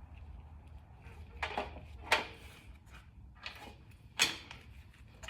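Motorcycle roller drive chain of a 1966 BSA A65L clinking against the sprocket and frame as it is fed on by hand, in four sharp clanks; the chain is binding as it goes on.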